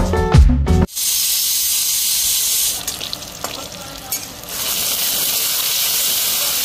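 Background music for about the first second, then it cuts to oil sizzling in a kadhai as garlic, green chilli and onion fry for a dal tadka, with a metal spatula scraping now and then. The sizzle dies down in the middle and comes back loud, as tomato goes into the hot oil.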